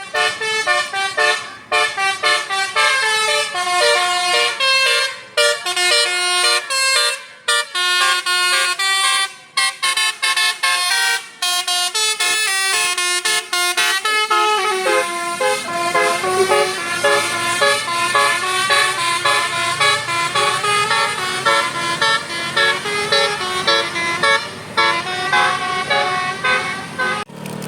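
A tour bus's telolet Basuri musical horn playing a quick multi-note tune, its pitch stepping up and down several times a second. In the first half the melody breaks off briefly now and then; from about halfway a low engine rumble runs under it.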